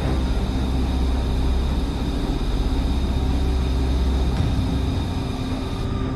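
Jet aircraft engine rumble, steady and deep, easing off about four seconds in.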